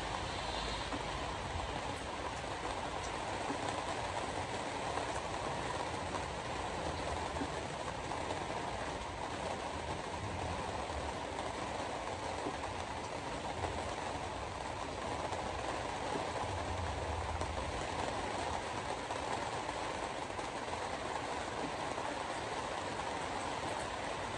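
Steady road and tyre noise of a car driving on a wet road, heard from inside the cabin.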